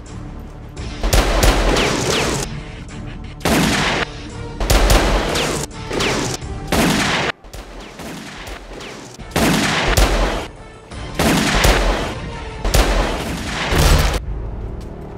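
Dubbed-in automatic gunfire sound effects: a string of about nine bursts, each lasting around a second and cutting off abruptly, over background music.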